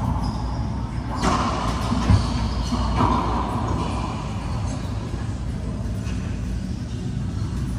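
A few sharp racquetball hits, ball against racquet and court walls, ringing in the enclosed court over a steady low rumble. They fall in the first three seconds, the loudest a short thump about two seconds in.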